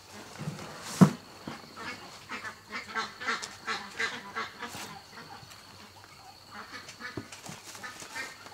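Ducks quacking in a rapid run of short calls, with one loud thump about a second in and a faint steady high-pitched whine underneath.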